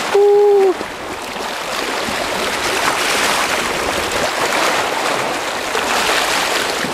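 Steady rushing noise of sea water and wind around a small boat at sea. It opens with a short, steady, held tone lasting about half a second.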